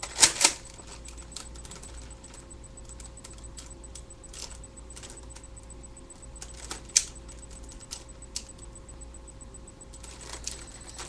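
Scattered clicks and knocks from a plastic Nerf blaster being handled, with two sharp clicks right at the start and another about seven seconds in.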